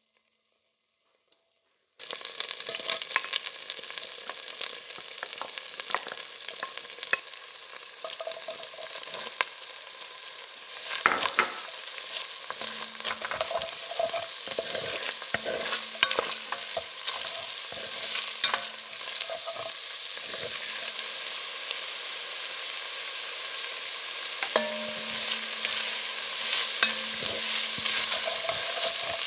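Chopped red capsicum and onion frying in oil in an enamelled cast-iron pot, sizzling steadily while a wooden spatula stirs and scrapes them around. It starts after about two seconds of near silence, and the sizzle grows gradually louder.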